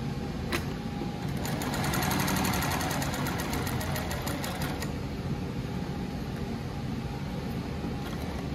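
New-Tech GC-801 Wig post bed industrial sewing machine on a servo motor stitching through fabric. There is a single click about half a second in, then a fast, even run of needle strokes starting about a second in that stops about five seconds in.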